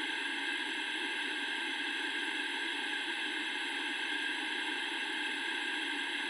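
Steady hiss of television static from an old set showing no picture.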